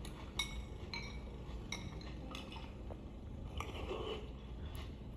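A spoon clinking against a cereal bowl during breakfast, several light clinks with a short ring spread out about every half second to a second, and a brief rustle near the end. Heard over cinema speakers with a steady low hum underneath.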